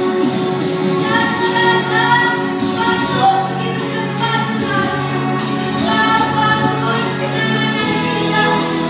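A primary-school children's choir singing a slow song in unison, over steady held chords underneath.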